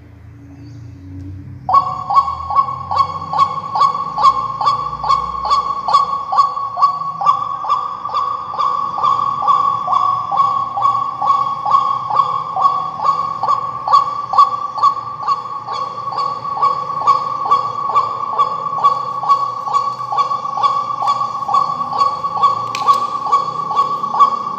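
Battery-powered bird-caller speaker playing a recorded bird call on a loop: a pitched call repeated rapidly, a few notes a second, starting about two seconds in and going on without a break.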